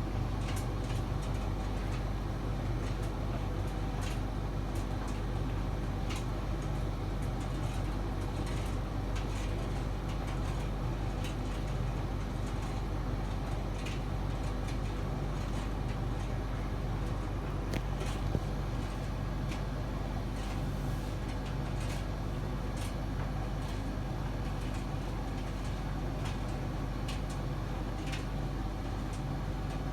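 Servis Caress M2010 tumble dryer running: a steady motor-and-drum hum with faint light ticks scattered through it, while the drum turns on the cool-down with cold air blowing from the vent.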